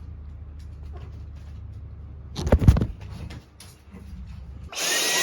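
A low hum, a loud knock about halfway through, then near the end an electric appliance motor, of the vacuum-cleaner kind, switches on with a loud steady rush and a high steady whine.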